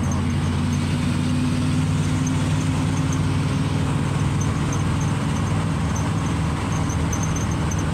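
The GMC 370 V8 in a 1958 Chevrolet 3600 truck running steadily as the truck drives along, heard from inside the cab with road and tyre noise.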